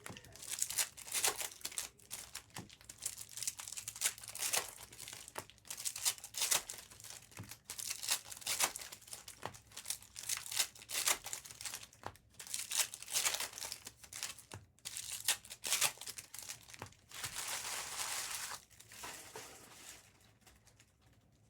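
Plastic and foil wrapping of trading card boxes and packs being torn open and crumpled: a run of irregular crinkling rustles, with one longer steady rustle near the end before it goes quiet.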